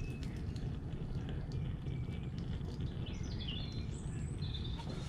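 Gas blowtorch flame hissing steadily as it heats two coins and their solder. From about three seconds in, birds chirp over it.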